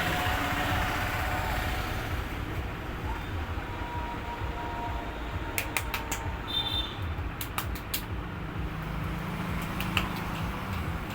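Steady street traffic rumble, with two short runs of sharp clicks or slaps about halfway through.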